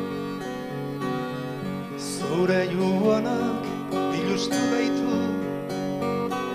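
Acoustic guitar and accordion playing a slow instrumental passage together, the accordion holding long notes over the strummed and picked guitar.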